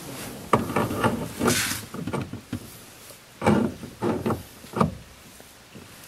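NRG steering hub being pushed and worked onto the Civic's splined steering shaft and seated against the column: a run of knocks, clicks and scrapes starting about half a second in, then a second run about three and a half seconds in.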